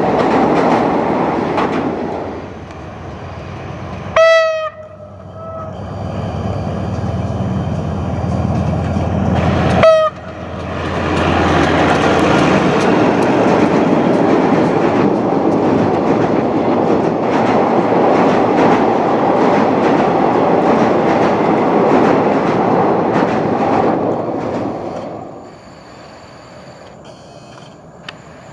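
Trains crossing a steel truss railway bridge: a steady rumble and clatter of passenger carriages running over the girders, broken by two short, very loud diesel locomotive horn blasts about 4 and 10 seconds in. Then comes a long steady rumble of a diesel locomotive hauling its train across the bridge, which drops away sharply about 25 seconds in.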